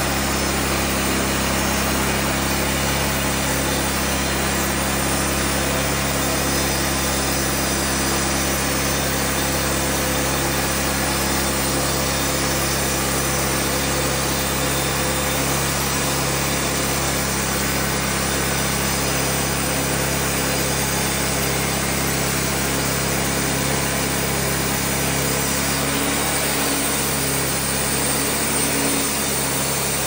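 Wood-Mizer LT50 Wide bandsaw mill running steadily, its engine humming while the band blade saws through a red oak log as the saw head travels along it.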